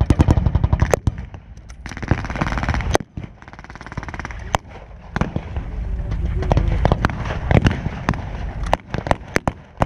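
Blank gunfire from WWII reenactors: a rapid machine-gun burst at the start, a fainter fast rattle about two to three seconds in, then scattered single rifle shots that bunch up near the end.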